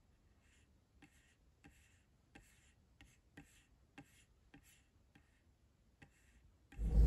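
Faint, unevenly spaced clicks, about one or two a second, from a laptop trackpad being worked while a web page is scrolled and edited. Near the very end a loud low car-cabin rumble cuts in.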